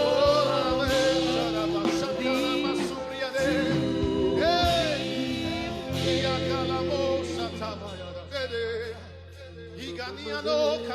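Live gospel worship music: singing over a steady instrumental backing, with the music softening briefly near the end.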